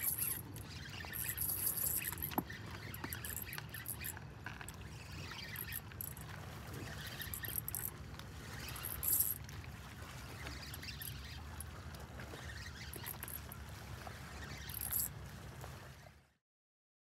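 Shoreline water lapping and splashing, with intermittent hissing splashes over a low steady rumble. The sound cuts off abruptly near the end.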